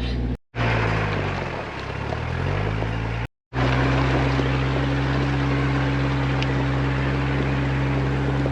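A 4x4's engine running as it drives a rough trail, a steady drone with road noise. Twice the sound cuts out for a moment; in the first stretch the engine note dips and rises again, then holds steady.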